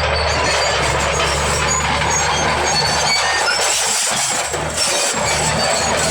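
Bulldozer's diesel engine running steadily, with a dense rattling, clanking noise over the engine's low hum.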